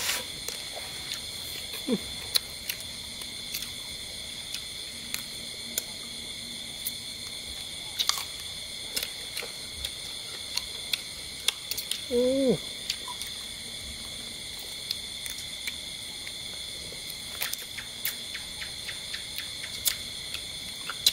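Steady chorus of night insects trilling at several high pitches, with scattered clicks and smacks from people eating with their hands and a brief voiced sound about twelve seconds in.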